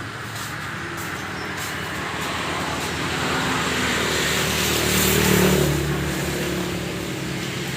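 A motor vehicle's engine running, swelling to its loudest about the middle and then easing off, over a steady background hum.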